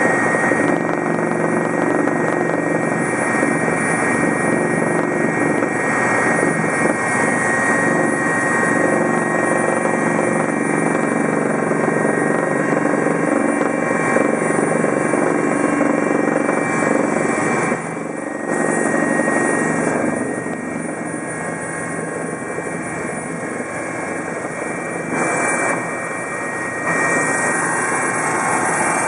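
Helicopter in flight heard from inside its cabin: a steady, loud drone of rotor and turbine with a constant high whine. The level steps down and back up abruptly a few times in the second half.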